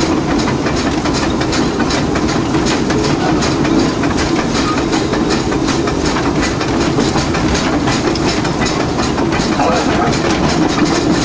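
Oil-fired steam locomotive heard from inside its cab, running at speed: a steady, loud din of rapid even beats, made up of exhaust chuffs and wheel clatter on the rails, over a constant low rumble.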